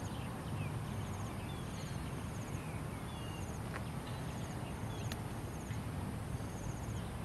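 Countryside field ambience: insects chirping in a short, evenly repeating high pattern, with a few brief bird chirps over a low background rumble.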